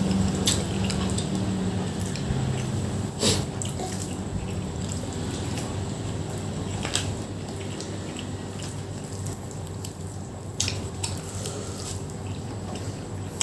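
A person chewing a mouthful of food with wet mouth sounds, with a few sharp clicks standing out.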